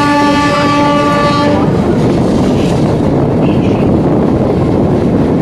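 A train horn holds one steady note and stops about a second and a half in, over the steady running noise of an electric multiple unit (EMU) local train heard from on board.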